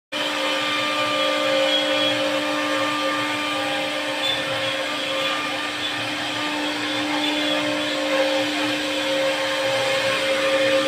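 CNC wood router running steadily, a constant motor whine over a broad rushing noise.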